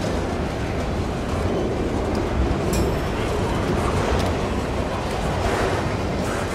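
Freight train of enclosed autorack cars rolling past: a steady rumble of steel wheels on the rails, with one brief sharp click a little under three seconds in.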